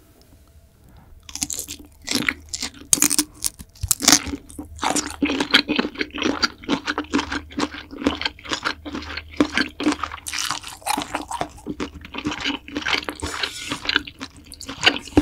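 Close-miked chewing of spicy seafood ramyeon, noodles and seafood wrapped in green-onion kimchi. After about a second of quiet comes a dense, irregular run of crunching chewing sounds.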